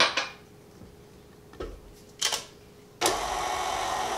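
A few sharp clinks of metal utensils against the steel mixing bowl, then about three seconds in a tilt-head stand mixer starts suddenly and runs steadily, beating milk into powdered-sugar buttercream frosting.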